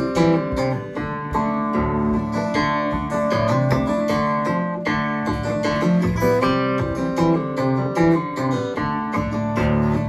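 Acoustic guitar playing an instrumental break in a song, strummed and picked chords with no singing.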